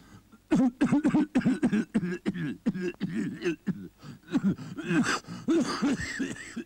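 A cartoon character's voice giving a rapid string of short groans and grunts, each one sliding up and down in pitch, about three or four a second.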